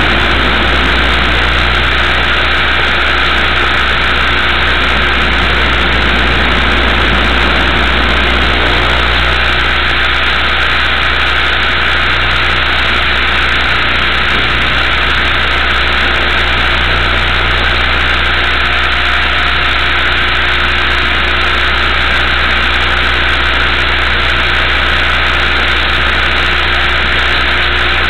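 Multiplex Funcopter RC helicopter's electric motor and rotor running steadily in flight, a loud, even whirring drone heard from the onboard camera.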